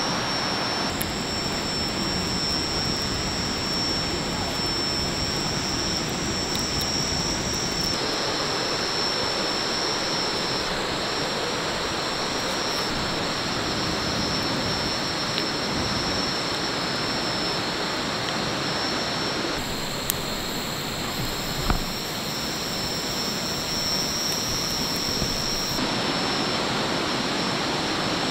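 Forest stream running in a steady rush of water, with insects trilling in one unbroken high-pitched drone on top; the trill drops out and comes back at a few hard cuts. A single soft knock about three-quarters of the way through.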